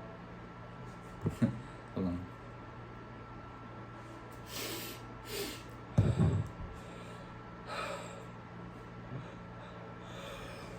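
A person sniffing pepper in short, sharp nasal sniffs and snorts, with gasping breaths, while trying to hold in a sneeze. The loudest sound, a muffled burst about six seconds in, is a stifled sneeze.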